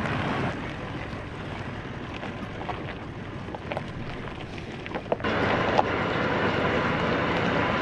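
A vehicle driving, its road and wind noise a steady rush. About five seconds in the sound changes abruptly, turning louder and brighter, with a few light knocks.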